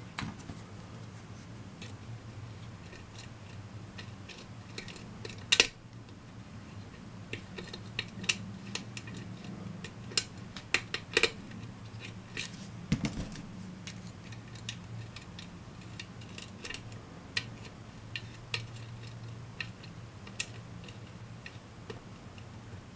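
Small irregular metallic clicks and scrapes of a lock pick working the pin stack of a six-pin challenge lock under a top-of-keyway tension bar, with a few sharper clicks standing out. A faint steady hum lies underneath.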